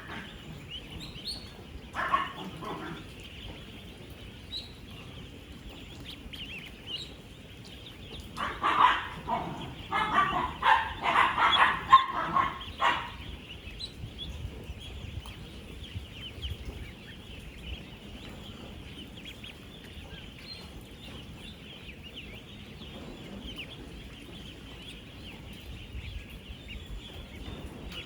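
A dense flock of thousands of ten-day-old ducklings peeping without pause. A short loud burst comes about two seconds in, and a run of louder, lower-pitched calls lasts several seconds about a third of the way through.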